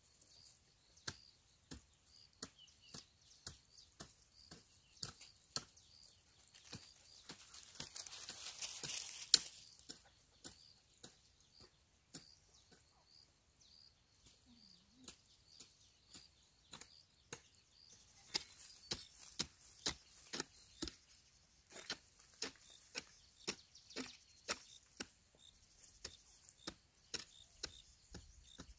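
A quick, even run of light chopping knocks, about two to three a second, with a burst of rustling about eight seconds in.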